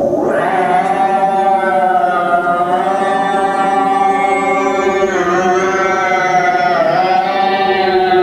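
Sustained electronic synthesizer tone rich in overtones, held on one pitch with slow swoops down and back up about five and seven seconds in.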